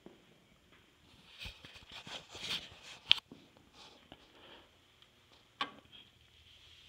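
Scattered small knocks and clicks of someone moving around a room and handling things, with a sharp click a little after three seconds and another a little before six seconds.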